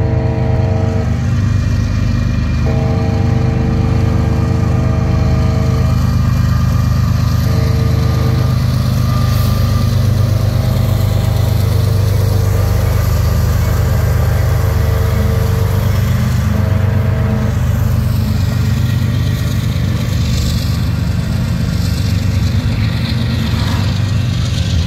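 A Union Pacific diesel locomotive sounds its horn at a grade crossing in a series of long and short blasts over the heavy low rumble of its engine. The blasts end about two-thirds of the way through. The double-stack container cars then roll past with steady wheel and rail noise.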